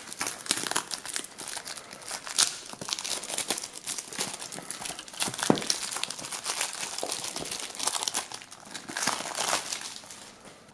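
Clear cellophane shrink-wrap being torn and peeled off a small cardboard box, crinkling with many sharp crackles that die away near the end.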